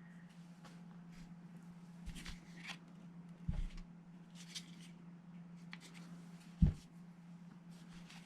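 Airsoft rifle parts handled on a workbench: scattered light clicks, taps and scrapes of small metal and plastic parts, with one louder knock about six and a half seconds in. A steady low hum runs underneath.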